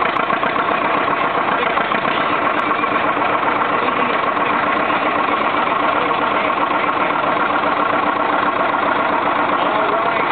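John Deere 720 Diesel's two-cylinder diesel engine running steadily under load as the tractor pulls a sled in second gear.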